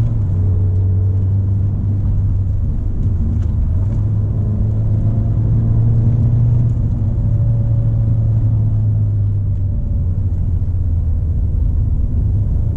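Ford Fiesta ST's turbocharged 1.6-litre four-cylinder engine running steadily under way, a low drone whose pitch eases down a little near the start and again about ten seconds in.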